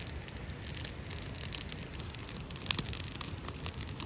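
Irregular crackling and rustling: many small clicks and scrapes, with a few sharper ticks near the end.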